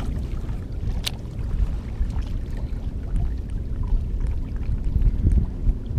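Wind on the microphone with small waves lapping against the jetty's rocks, a steady low rumble with faint scattered splashy ticks, and one sharp click about a second in.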